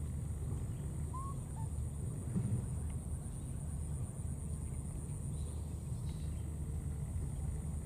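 Outdoor ambience: a steady low rumble with a faint, steady high-pitched tone over it, and one short rising chirp about a second in.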